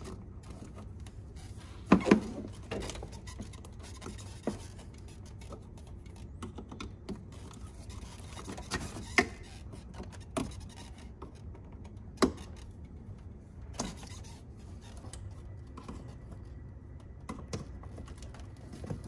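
Irregular sharp plastic clicks and small rattles as wiring harness connectors behind a car's rear bumper cover are pried and unclipped with a hand tool. The loudest is a quick double click about two seconds in.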